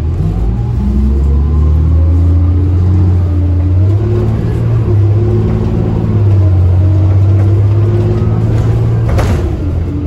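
City bus engine accelerating, heard from inside the bus: its pitch climbs in steps over the first few seconds, then holds steady. A single sharp knock comes near the end.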